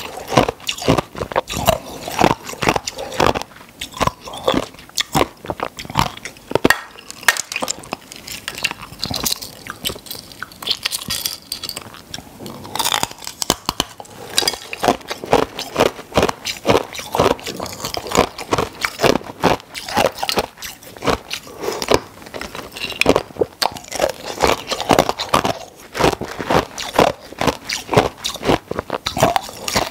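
Ice being bitten and crunched between the teeth close to the microphone: a steady run of sharp crunches, several a second, with no pause.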